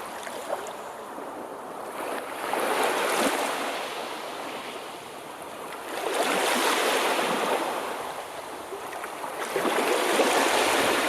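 Sea waves washing in: surf noise that swells and falls back three times, about every four seconds.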